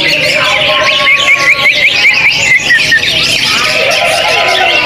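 Several caged songbirds singing at once, many songs overlapping. A quick run of short rising chirps comes in about a second in and lasts to about three seconds, over steadier whistled notes.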